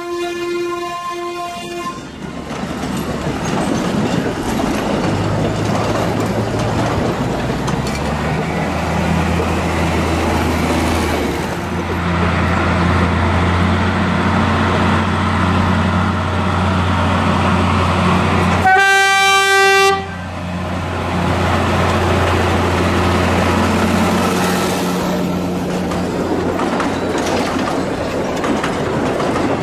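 Narrow-gauge diesel train, an Mk48 locomotive hauling open wagons: a horn sounds one steady note at the start and again for about a second two-thirds of the way in. Between the horn blasts the locomotive's diesel engine runs with a low drone that steps up in pitch a few times as it pulls its load, with the wagons rolling past.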